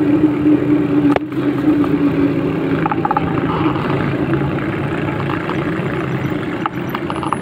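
Motorcycle engine running while riding along a road, its note falling slightly over the first couple of seconds as it eases off, with road and wind noise and a single sharp click about a second in.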